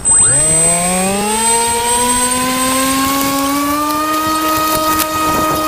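Sky Surfer RC plane's electric motor and propeller spooling up to full throttle for a takeoff run: a whine that starts suddenly, rises in pitch for about four seconds, then holds steady. There are a couple of sharp ticks about five seconds in.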